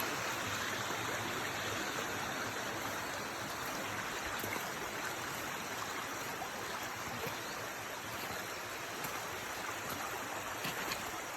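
Floodwater rushing in a swollen stream, a steady rush of running water.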